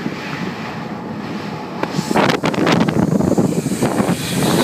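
Jet airliner's engines running up to takeoff power. About two seconds in, the jet blast reaches the microphone and turns the sound into loud, gusting wind buffeting.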